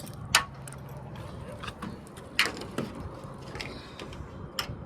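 Several sharp clicks and knocks of a camper trailer's door and latch being handled while it is closed up, the loudest about two and a half seconds in, over steady wind noise.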